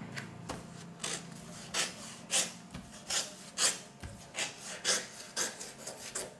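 A hand rubbing a folded sheet of coloured paper flat against a tabletop to set the crease: about eight short swishing strokes, roughly two a second.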